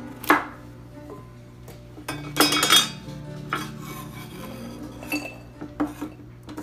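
Chef's knife chopping carrots on a wooden cutting board: a few separate knocks, with a louder ringing clatter about two and a half seconds in. Near the end the knife clinks against a glass bowl as the carrot pieces are scraped into it.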